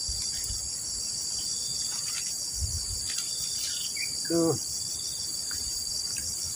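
Steady, high-pitched chorus of insects. About four seconds in there is a short pitched sound that falls in pitch.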